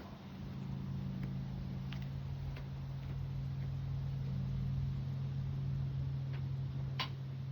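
Steady low hum, with a few faint clicks and one sharper tick about seven seconds in.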